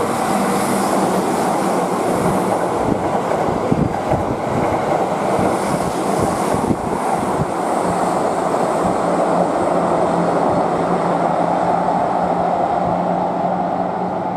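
Keihan Main Line electric train running along the station track: steady wheel-and-rail noise with a low motor hum, and a run of wheel clacks over the rail joints in the middle.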